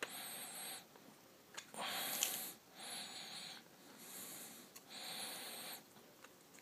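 A person breathing through the nose close to the microphone: five breaths about a second apart, some with a faint whistle. A few light clicks of a clear plastic memory card case being handled.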